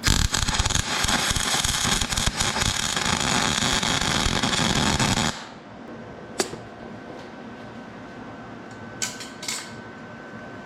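Welding arc crackling for about five seconds, then cutting off suddenly: a nut being welded onto the stub of a broken exhaust-manifold bolt. A few light clicks follow.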